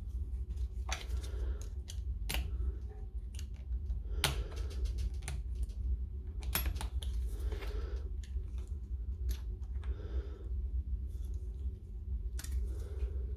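Irregular light clicks and scrapes of small metal parts being handled and fitted as the chuck of a DeWalt DCH273 SDS hammer drill is put back together, over a steady low hum.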